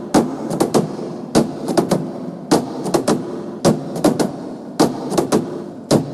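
Tap shoes of a dancer hanging upside down, striking the rig above him in a steady pattern. Each cycle is one strong tap followed by a quick run of three lighter taps, repeating about once a second.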